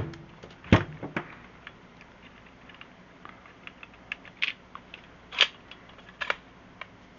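Scattered clicks and knocks of hand-held staple guns being handled and set down, the loudest knock about a second in and smaller clicks every second or so after.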